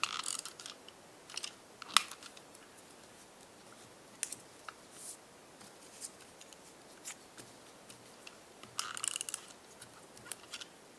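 Light rustling and crackling of paper being handled, with scattered small clicks as folded paper strips are placed and pressed down with double-sided tape. There are two short bursts of rustling, one at the start and one about nine seconds in, and a single sharp click about two seconds in.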